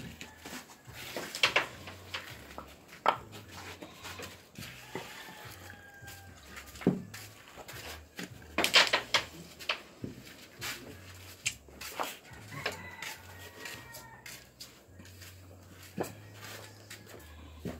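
A rooster crowing faintly twice, about five seconds in and again about twelve seconds in, among scattered sharp clacks and knocks; the loudest clacks come about a second and a half and about nine seconds in.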